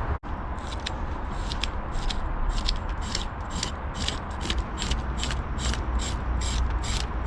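Scraping the scales off a large striped bass: a quick, even run of short rasping strokes, about three to four a second, over a steady low rumble.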